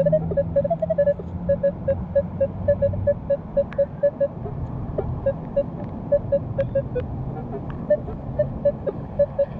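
Metal detector beeping steadily in short high tones, about five a second, with a passing car's low rumble underneath.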